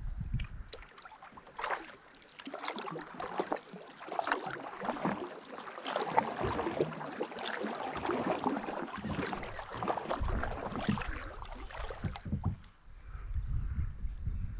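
Kayak paddle strokes through river water, the blades splashing and dripping over many strokes; a low rumble comes in near the end.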